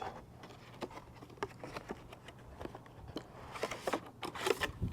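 Small plastic clicks and rustling from handling a Rain-X Latitude wiper blade while pushing it onto the wiper arm, with a busier spell of rustling near the end.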